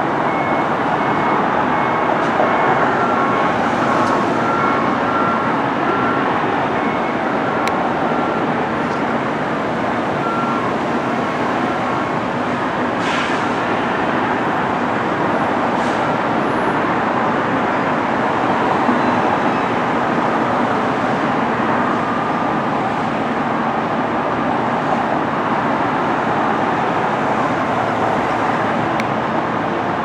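Steady vehicle traffic noise, with faint short on-and-off beeps during roughly the first twelve seconds and a brief hiss about 13 seconds in.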